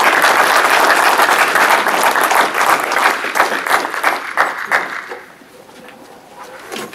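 Audience applauding, dense and steady at first, then dying away about five seconds in, with a few last scattered claps.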